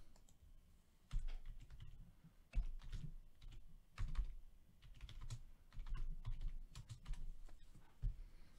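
Typing on a computer keyboard: short runs of key clicks with brief pauses between them.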